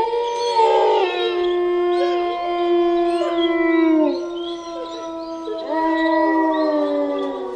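Several wolves howling together in long, overlapping howls held on steady pitches, some sliding down as they end about four seconds in. A fresh howl rises in about six seconds in.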